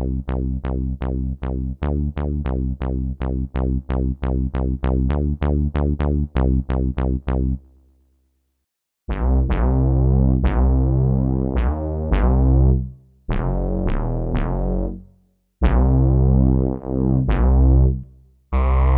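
MES Mini PWM synthesizer playing bass patches: first a quick, even run of short, punchy bass notes, about three or four a second, that stops near the middle. After a second of silence a second bass patch plays slower, longer notes, each with a bright attack that quickly darkens.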